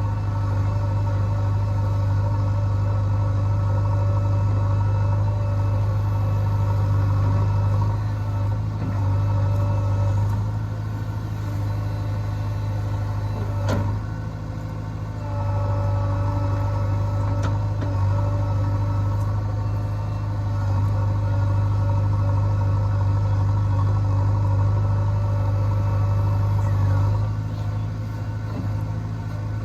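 Diesel engine of a JCB 3DX backhoe loader running with a steady low drone. Its level dips briefly about halfway through and again near the end.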